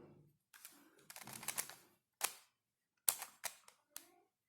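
Plastic pieces of a Dayan Tangram Extreme twisty puzzle clicking and rattling as it is turned and handled: a rattling run of clicks about half a second in, then a few separate sharp clicks.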